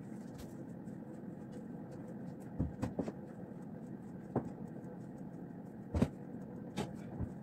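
A steady low hum with several light clicks and knocks, the loudest about six seconds in.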